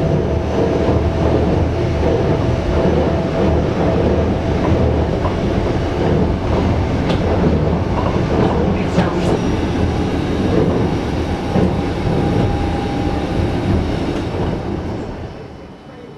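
Wengernalpbahn electric train running, heard from inside the carriage: a loud, steady rolling rumble with a faint whine and a few clicks about halfway through. It falls off sharply near the end as the train slows into a station.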